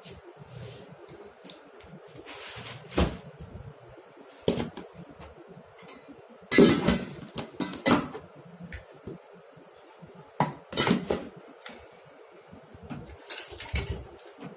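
Metal hand tools and small parts clinking and clattering as they are picked up and set down, in irregular bursts, the loudest a bit past a third of the way in.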